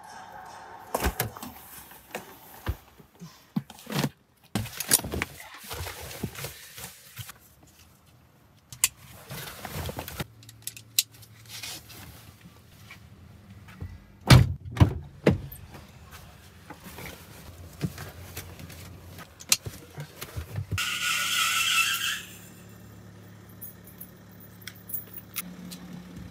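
Knocks, thunks and rustling of things being handled in the back of a car, with keys jangling and doors thudding. A low steady hum runs underneath from about halfway through, and a high squeal lasting about a second comes about four-fifths of the way in.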